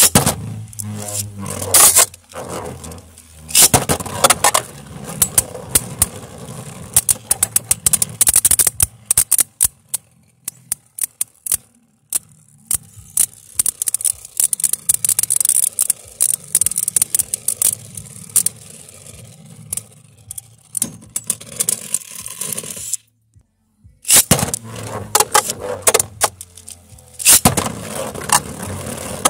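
Beyblade Burst spinning tops whirring and scraping across a plastic stadium floor, with rapid sharp clacks as they collide. Late on the sound drops out for about a second, then the clashing starts up again.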